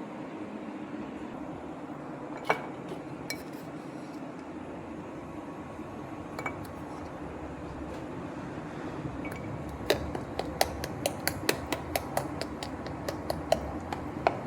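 A kitchen utensil clinking against a dish over a steady low hum: a few separate clinks, then from about ten seconds in a quick run of taps, about three a second.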